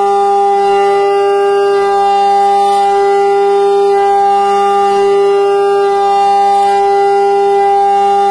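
Haas VF-2SS CNC mill's spindle at 12,000 RPM driving a Korloy Pro-X indexable mill through an aluminium block. It makes a loud, steady singing whine with a strong pitch and a ladder of overtones, holding unchanged through a heavy cut of about half an inch depth at around 43% spindle load.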